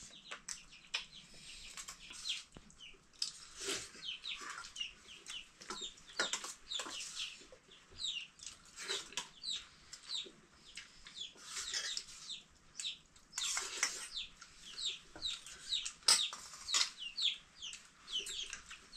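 Chickens clucking and cheeping, many short high calls following one another in quick succession.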